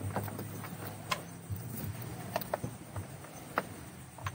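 Wet fishing net being hauled in over a wooden boat's gunwale: scattered knocks, taps and drips as the net and the fish caught in it come aboard, over a low steady hum.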